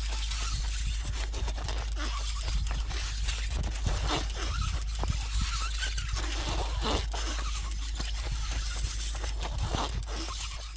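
Wind buffeting the microphone as a steady low rumble, over the scraping, crunching noise of bicycle tyres rolling on a rough surface, with scattered small rattles and clicks.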